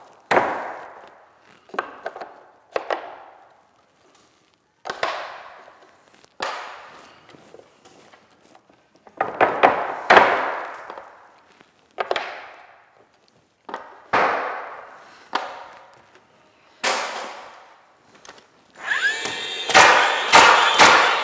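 A nail gun firing a string of single shots into a trim board fixed to wooden beam framing. There are about a dozen sharp shots, each with a fading ring, and a denser, louder run of noise near the end.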